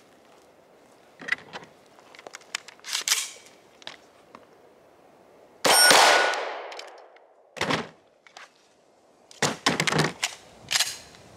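Clicks and rattles of a gun being handled, then a single 9mm gunshot about six seconds in, followed by a metallic ringing tone. A short sharp sound comes near eight seconds, and a quick run of clicks near the end.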